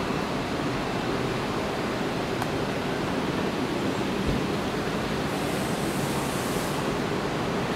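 Distant steady rushing roar of a Boeing 777's Pratt & Whitney PW4000-series turbofan engines as the airliner flares and touches down on a wet runway. A brief higher hiss joins about five seconds in.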